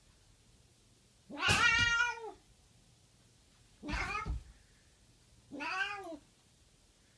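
A cat yowling three times while guarding a food bowl from a puppy. Each call rises and then falls in pitch, and the first is the loudest and longest.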